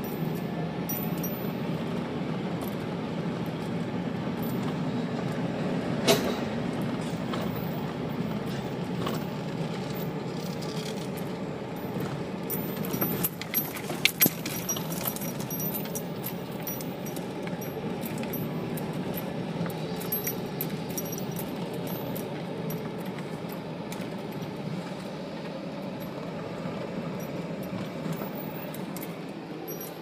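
Car driving slowly on an unpaved road, heard from inside the cabin: a steady low rumble of engine and tyres, with a sharp knock about six seconds in and a few rattles and clicks around fourteen seconds.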